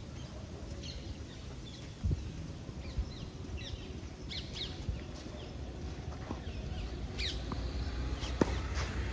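Small birds chirping in short, falling calls over a steady low background rumble. A dull knock comes about two seconds in, and near the end a tennis racket strikes the ball sharply, the loudest sound here.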